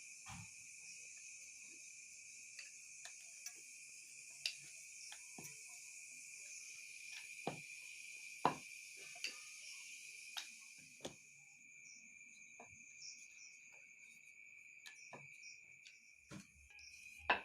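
Crickets chirring steadily in a high, even tone, with a higher hiss that drops away about two-thirds of the way through. Scattered light clicks and knocks sound throughout.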